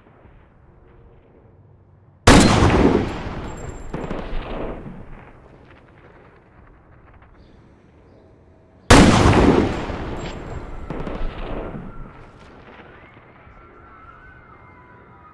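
Two sniper rifle shots about six and a half seconds apart. Each is a sudden loud crack followed by a long echo that rolls on and fades over about three seconds.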